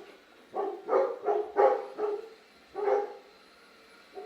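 A dog barking, about six sharp barks in quick succession over the first three seconds. The dog is agitated, barking at landscapers working next door.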